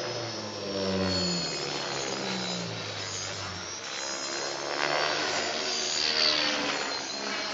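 Radio-controlled model airplane flying overhead, its motor buzzing with a pitch that slides down and then up again as it passes and changes throttle.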